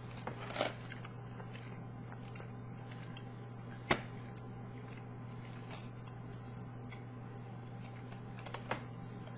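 Faint sounds of a person chewing a sticky jelly candy, over a steady low hum, with a few short clicks, the sharpest just before the middle.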